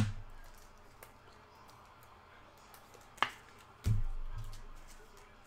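Handling noise at a table: a sharp click at the start and another about three seconds in, then a dull thump that fades slowly, with faint small ticks in between.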